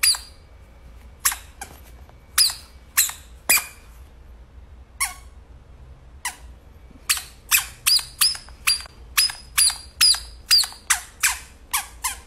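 Dog's squeaky toy squeaking over and over as a pit bull chomps on it. Each squeak is short and falls in pitch. They come scattered at first, then from about seven seconds in they come in a fast run of about three a second.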